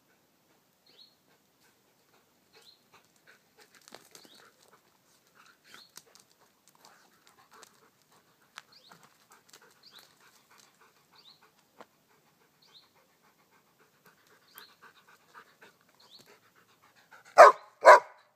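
A small dog barks twice in quick succession near the end. Before that there are only faint footsteps on a stony dirt track and faint, short high chirps.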